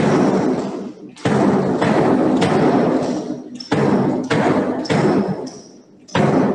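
Marching drum beat: heavy drum strokes about two-thirds of a second apart, in groups of three with short pauses, echoing in a large hall.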